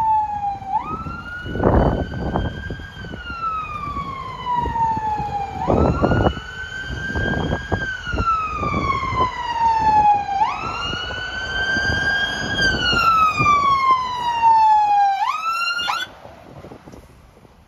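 Fire engine siren sounding a wail as the engine approaches and passes: each cycle jumps up quickly, holds briefly and then falls slowly, about every five seconds, over patches of low rumble. It cuts off suddenly near the end.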